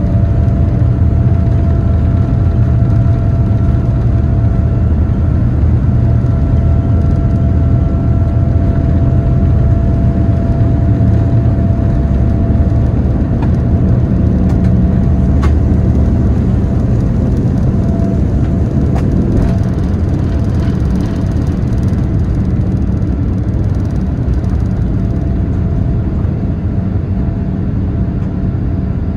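Boeing 787-9 jet engine and airflow noise heard inside the cabin: a loud, steady deep rumble with faint steady engine tones above it, easing slightly toward the end. A single sharp click about halfway through.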